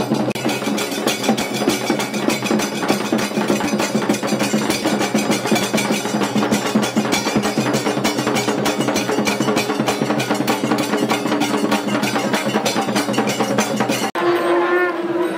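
Double-headed barrel drums and large brass hand cymbals playing a fast, dense processional rhythm, the cymbals clashing on nearly every beat. Near the end it cuts suddenly to a steady held note.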